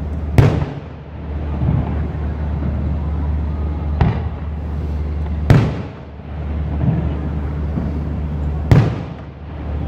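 Aerial firework shells bursting: four sharp bangs, the first and last the loudest, with weaker thuds between them over a steady low rumble.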